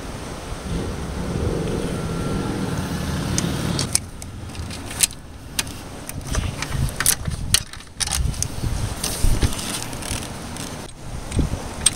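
A wrench and metal engine parts clinking as a bolt is worked on under a car's hood: irregular sharp metal clicks and knocks starting about four seconds in, after a stretch of rustling handling noise.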